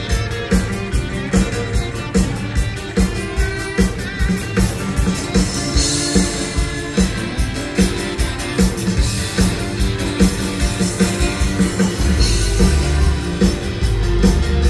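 Live rock band playing an instrumental passage: guitars over bass and a drum kit keeping a steady beat, recorded by an audience taper in the hall.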